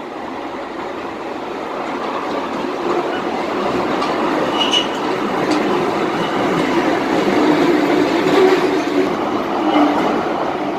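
Kiddie roller-coaster train rolling along its elevated steel track, its wheels rumbling louder as it passes. A brief high wheel squeal comes about five seconds in.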